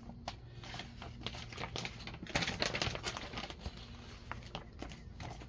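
Stiff paper crackling and rustling as a folded paper map is handled and opened out, thickest around the middle.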